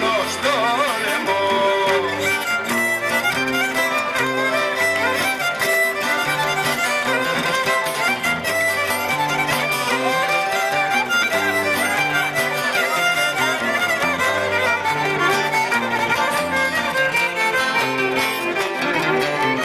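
Greek folk dance music played through loudspeakers: a violin carries the tune over a steady, repeating bass line.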